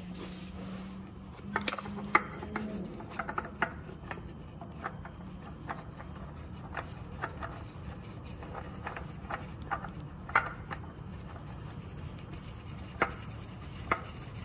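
A new spin-on oil filter being screwed on by a hand in a nitrile glove: scattered, irregular light clicks and rubbing of the filter and glove against the engine's metal and plastic. A faint low hum runs through the first few seconds.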